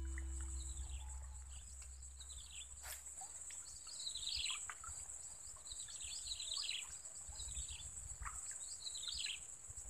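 Marsh ambience: a steady high-pitched insect drone, with a bird repeating a short, falling chirpy phrase every second or two from about four seconds in. A single sharp click about three seconds in.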